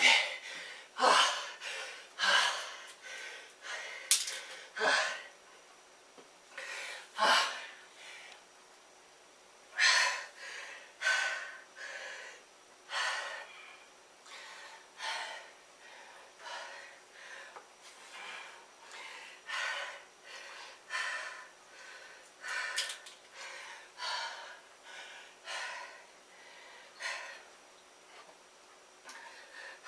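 A man breathing hard and gasping through the mouth, about one breath a second, winded from sets of slow typewriter push-ups. The breaths are loudest in the first few seconds, pause briefly around the sixth second, then settle into an even rhythm.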